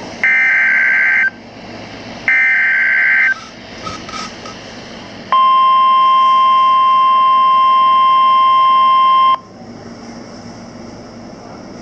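Two NOAA Weather Radio SAME header data bursts, harsh buzzing warbles of about a second each, a second apart. After a short pause comes the steady 1050 Hz Weather Radio warning alarm tone, held for about four seconds and cut off sharply. Together they mark the start of a new warning broadcast.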